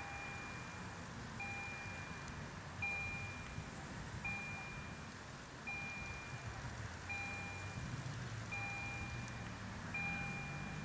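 Level-crossing warning bell sounding, a single ding about every 1.4 seconds, eight times. A low rumble from the passing electric passenger train grows under it in the second half.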